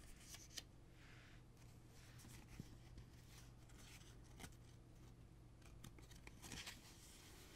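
Faint, scattered rustles, slides and light ticks of heavy-paper flash cards being handled: a card set down and the next one taken from the stack.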